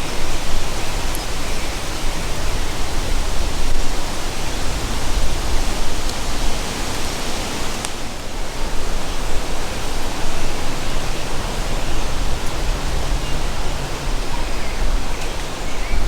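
Strong wind blowing over the microphone: a steady rushing noise with gusty low rumbling.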